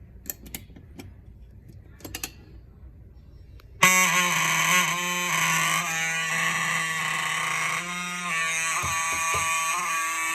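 A few faint clicks, then about four seconds in a Simplex 4903-9219 fire alarm horns come on abruptly and keep sounding without a break, a loud, buzzy multi-tone blare as the Simplex 4100+ system is tested.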